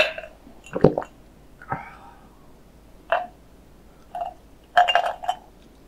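Drinking from a glass pitcher: swallowing gulps and glass clinking, in a handful of short separate sounds, with a sharp click at the very start.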